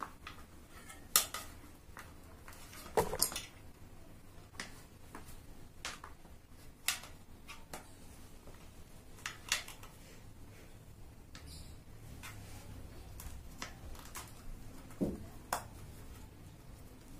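Scattered sharp clicks and knocks, a few of them louder, as a 20-inch KENDA folding-bike tyre is pushed by hand onto a spoked bicycle wheel rim.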